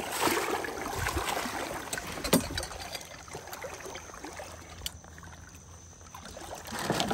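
Water sloshing and trickling as a wader moves in shallow water and handles gear, with a sharp knock about two and a half seconds in. It grows quieter in the second half.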